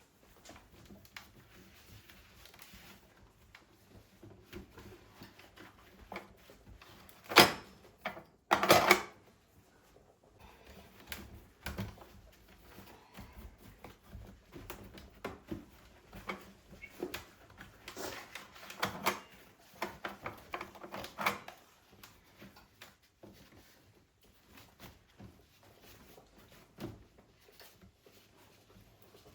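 Household handling sounds: scattered light clicks and knocks. Two louder sharp knocks come about a second apart early on, and a busier run of clatter follows in the middle.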